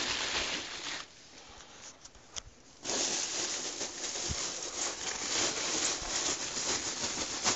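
Thin plastic protective bag crinkling and rustling as it is slid back off a flat-screen TV. The rustle dies down about a second in and picks up again about three seconds in.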